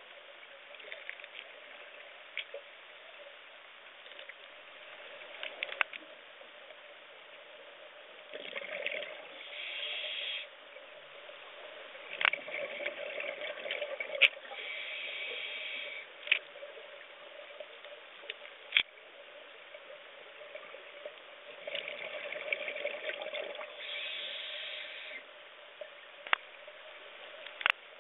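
Underwater sound picked up through a diver's camera: scuba breathing, with bursts of bubbling and hiss about every six to eight seconds, each lasting a second or two. A steady hum and sharp clicks now and then sit under it.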